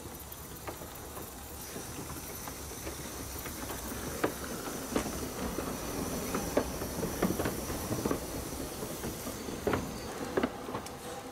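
15-inch gauge steam locomotive Hawk giving off a steady hiss of steam that stops near the end, with scattered light clicks and knocks.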